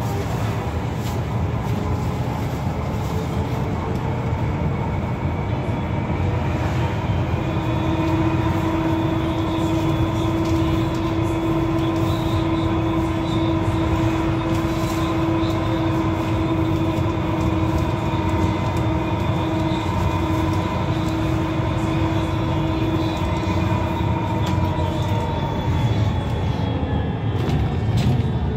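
Solaris Trollino 12 trolleybus under way, heard from inside: tyre and road rumble with a steady whine from the electric drive, strongest through the middle stretch.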